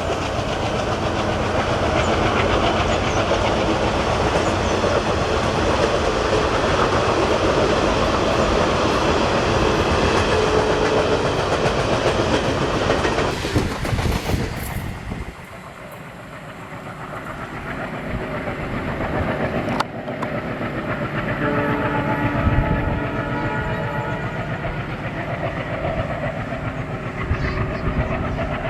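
Train running on the track with wheels clattering over the rail joints. After a sudden drop about halfway, a WDM3A diesel locomotive draws closer and sounds its horn, a held blast of two notes about three quarters in.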